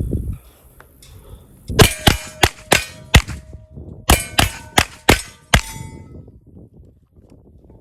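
Rimfire rifle shots on steel targets, each hit ringing the plate. Two quick strings of about six shots each, a second apart.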